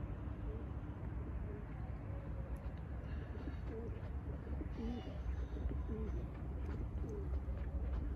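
Pigeons cooing, a few short low calls in the middle, with some fainter higher bird chirps over a steady low rumble.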